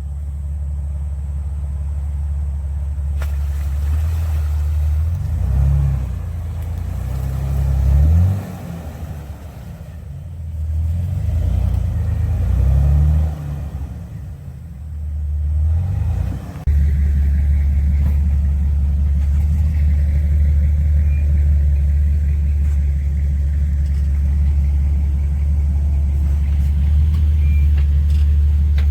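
Off-road vehicle engine revving up and dropping back several times. Then, a little past halfway, it changes suddenly to a steady, loud low rumble.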